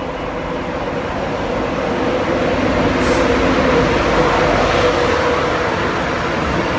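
InterCity 225 express passenger train, an electric locomotive with Mk4 coaches, running along the platform. The rumble of wheels on rail, with a steady hum, grows louder over the first few seconds as the coaches come alongside, and there is a short hiss about three seconds in.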